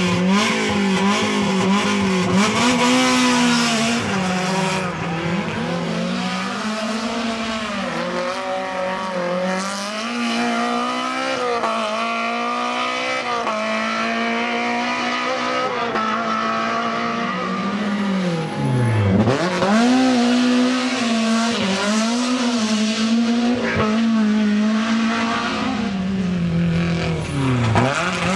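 A rally car's engine revving hard through the gears, its pitch climbing and falling over and over, with bursts of tyre noise. Twice the engine note drops steeply and climbs back: about two-thirds of the way through and again near the end.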